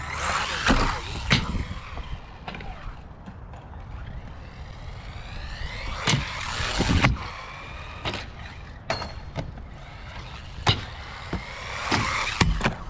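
Arrma Typhon Grom RC buggy's electric motor whining up and down in pitch as it accelerates and lets off, with sharp knocks from the car landing and bouncing on concrete about half a dozen times, over a low wind rumble.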